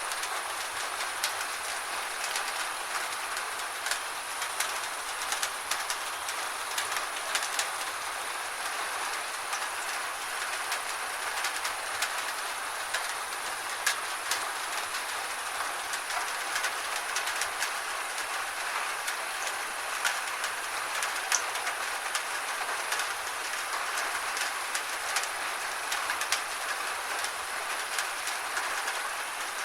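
Rain falling on a tin roof: a steady hiss with many sharp, irregular ticks of drops striking the metal.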